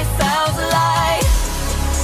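Electronic pop music with deep kick drums that drop in pitch, a sustained bass, and a wavering synth melody.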